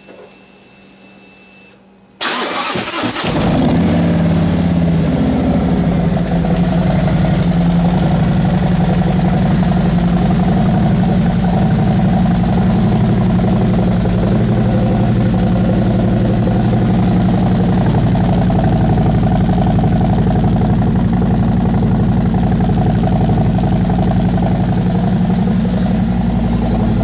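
Harley-Davidson Milwaukee-Eight 107 V-twin of a 2017 Road Glide, breathing through Wildpig head pipes and 4.5-inch DNA megaphone slip-ons, cold-started: about two seconds in it cranks briefly, catches, and settles into a loud, steady deep rumble at a raised cold idle.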